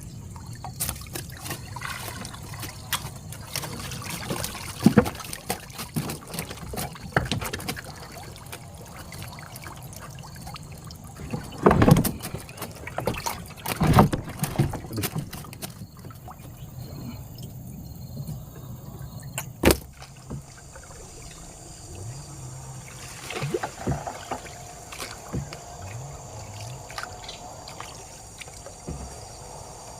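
Water splashing and trickling, with irregular knocks and clatters and a few louder thumps.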